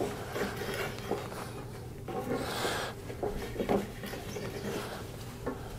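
Marking gauge scraping a line along the edge of a thin strip of wood: faint, uneven scratching, louder for a moment about halfway through.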